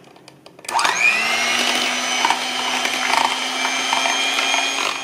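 Electric hand mixer switched on about a second in, whining up to speed and then running steadily as its beater whips cream in a plastic jug. A few light clicks come just before it starts.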